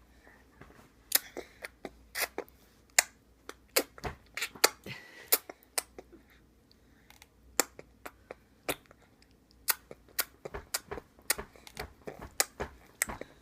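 Irregular sharp crunching clicks of food being bitten and chewed, some louder than others, spaced unevenly with short pauses.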